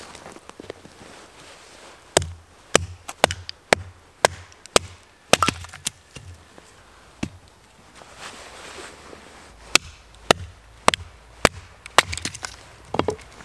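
Short-handled axe chopping wood on a stump chopping block, splitting small logs into kindling. It gives a run of sharp chops about two a second, a pause, then a second run of chops near the end.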